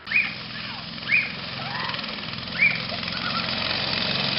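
Small go-kart engine running steadily, growing louder as the kart drives closer. Three short high-pitched cries ring out over it, the loudest sounds, just after the start, about a second in, and about two and a half seconds in.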